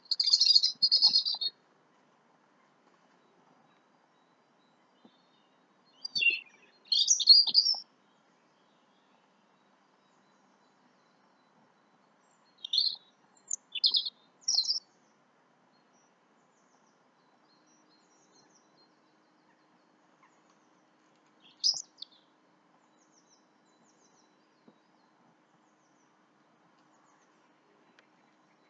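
Songbirds chirping in short phrases of rapid, high notes, four bursts separated by pauses of several seconds.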